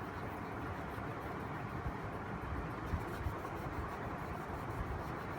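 Steady background rumble and hiss with a few faint, brief scratchy ticks.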